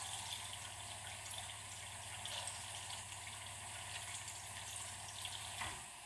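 Thin stream of filtered water from a reverse osmosis drinking-water faucet running steadily into a glass measuring cup as it fills, with a steady low hum underneath. The flow stops just before the end.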